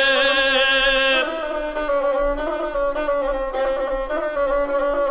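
Gusle, the single-string bowed folk fiddle, accompanying a male guslar's held, wavering sung note that ends about a second in. The gusle then plays on alone, a line hovering around one pitch with small ornaments, as an interlude between verses of an epic song.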